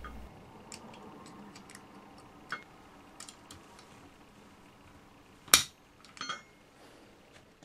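Light metallic clicks and handling of a Ruger Mini-30's receiver parts as the bolt lock cover plate is fitted and pushed upward. About five and a half seconds in comes one sharp metal click, the loudest sound, followed by a couple of lighter clicks.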